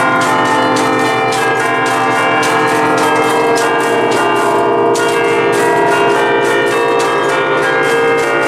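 A concerto of eight church bells in B-flat, cast by Luigi and Giorgio Ottolina in 1949, played rapidly from a bell keyboard. Wires pull the clappers, so the bells are struck in quick succession, several strokes a second, and their tones ring on over one another. Loud and close, inside the belfry.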